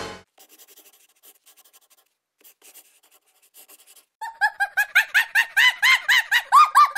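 Logo-intro sound effect: faint scattered ticks, then from about four seconds in a rapid string of high squeaky chirps, each rising and falling, about five a second and growing louder, like a cartoon monkey chattering.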